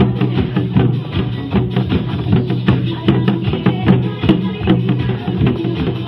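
Upbeat dance music with a steady, driving drum beat.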